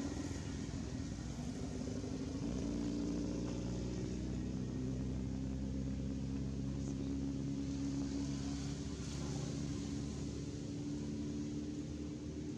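Steady low hum of an engine running, its tone shifting slightly about two and a half seconds in.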